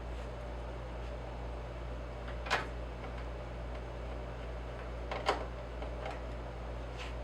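Steady low hum with a few sharp clicks or taps, the clearest about two and a half seconds in and just after five seconds.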